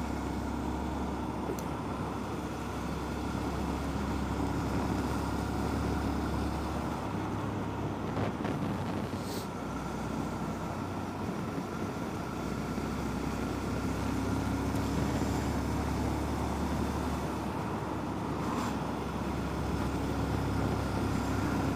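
Honda Monkey's single-cylinder four-stroke engine running steadily while the bike is ridden at an even pace, with a low wind rumble underneath.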